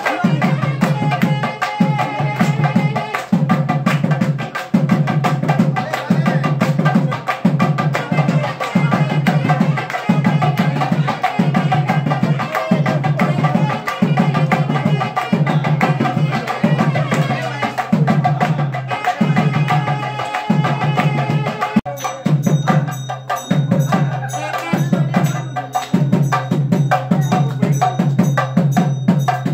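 Live temple music for dancing: a barrel drum beats a repeating pattern in cycles of about a second and a half over a steady sustained drone. After about 22 s the texture thins and the strokes stand out more sharply.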